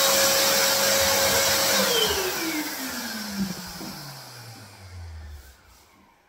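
Electric paint sprayer's turbine unit running loud and steady, then switched off about two seconds in. Its whine falls steadily in pitch as the turbine winds down, fading out over about four seconds.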